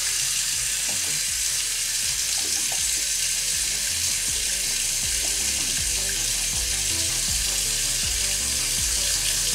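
Kitchen faucet running steadily into the sink while hands are washed under the stream.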